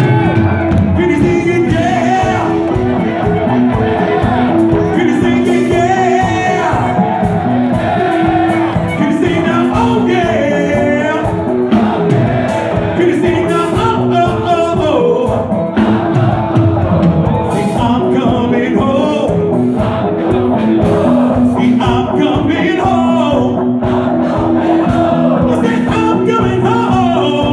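Live rock band playing: a male lead singer sings over electric guitar and keyboards.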